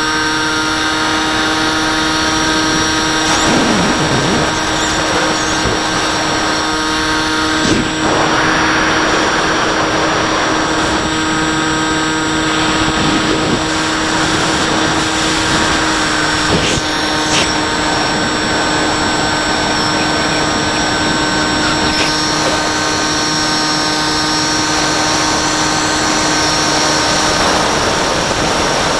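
Electric motor and propeller of a Bixler 3 RC plane running steadily in flight, heard on board as a constant whine with wind rushing over the airframe.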